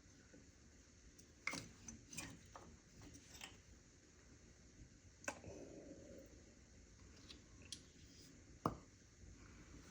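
Scattered light clicks and knocks of spark plugs and hand tools being handled, about five over several seconds, the loudest near the end.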